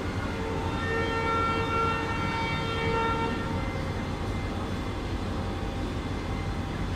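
Indian Railways train horn sounding one long blast of about three seconds as the train pulls out of the platform, over the low rumble of ICF passenger coaches starting to roll past.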